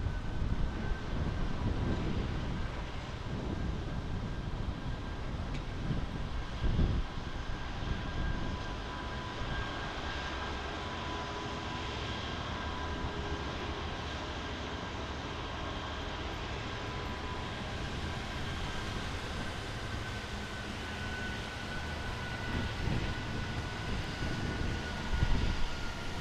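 Train running past with a steady whine in two pitches that sags a little near the end, over a rushing noise. Gusts of wind hit the microphone a few times.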